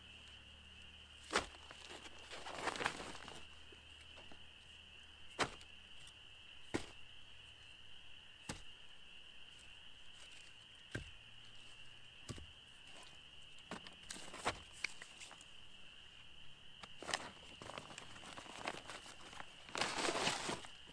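Split firewood logs being picked off a pile and set into a fabric carry bag: separate wooden knocks every second or two, with rustling of the bag and leaf litter. Near the end comes a longer rustle as the loaded bag is lifted by its handles.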